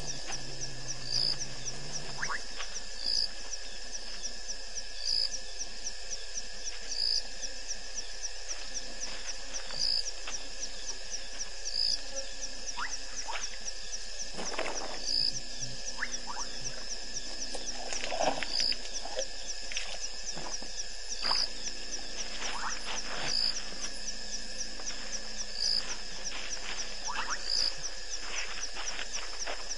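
Night chorus of insects and frogs: a continuous fast high-pitched trill, with a sharp high note repeating about every two seconds and scattered fainter calls in between.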